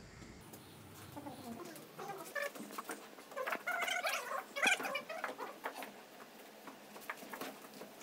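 A Murrah buffalo bull being roped and forced down onto its knees for hoof trimming: a run of short, wavering animal calls about 1 to 6 seconds in, loudest near the middle, with scattered knocks and scuffling.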